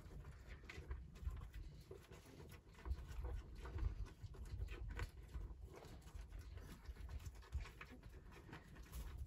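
A stag feeding with its muzzle in a wooden trough: irregular crunching chews and small knocks and rustles, loudest about three to four seconds in.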